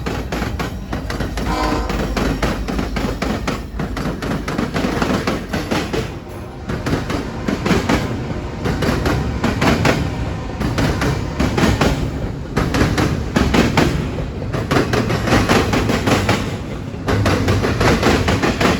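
A train passing close by, its wheels clattering over the rails in a dense, continuous rumble. A train horn sounds briefly about two seconds in.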